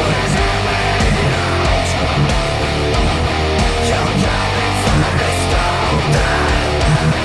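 Heavy, distorted electric guitar through a Fractal AX8 amp modeller playing a metal riff, with drums behind it.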